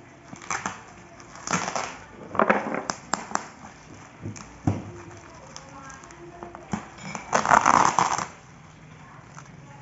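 Plastic crinkling and rustling from a bubble-wrap-lined mailer parcel being handled and its packing tape peeled, in several short bursts with a few sharp clicks. The longest and loudest burst comes near the end.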